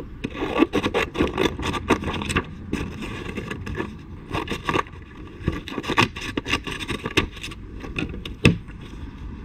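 Scissors cutting through a sheet of 180-grit sandpaper: an irregular run of crisp snips and crackles as the stiff paper is cut and handled, with one sharper snip near the end.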